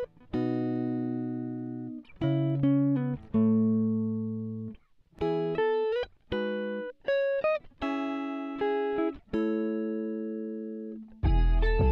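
Background music: plucked, guitar-like notes and chords, each struck and then fading, with a fuller part carrying a deep bass coming in near the end.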